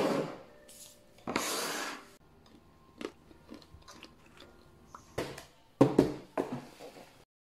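Objects being handled on a countertop: a few short bursts of rustling and scraping, with light clicks and small scratches in between and the busiest stretch near the end.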